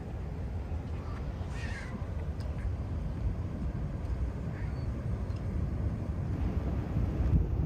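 Steady low rumble of wind on the microphone, with one harsh, caw-like bird call about one and a half seconds in.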